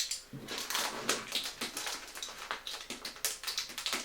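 Rapid, irregular crinkling and tapping of packaging being handled, as the wrapping around a LEGO instruction booklet is worked open.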